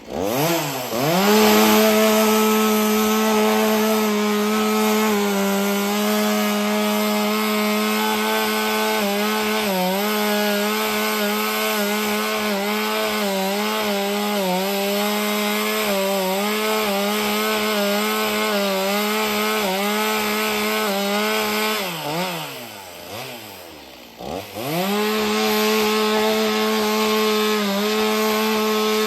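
Two-stroke chainsaw on a chainsaw mill revving up and running steadily at high speed under load, ripping lengthwise through a log. About 22 seconds in the engine drops off toward idle, then revs back up and carries on cutting.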